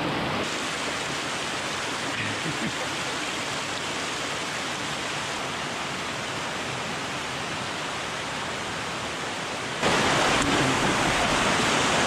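Steady rush of flowing water from a forest stream or waterfall, stepping louder about ten seconds in.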